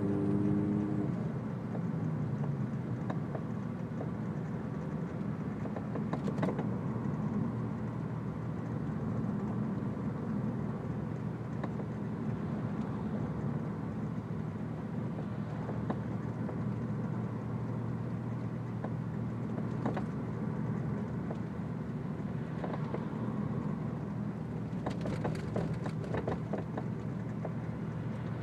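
Audi S4 running with a steady engine and road drone, broken by a few sharp clunks from the driver's side rear suspension, one about six seconds in, another around twenty, and a cluster near the end. The owner suspects a blown rear shock absorber.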